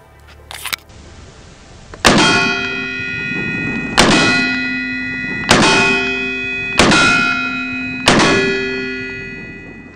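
Five 9mm shots from a Beretta M9A1 pistol, fired about one to two seconds apart. Each shot is followed by a steel target ringing on several tones, fading over about a second as the hit registers.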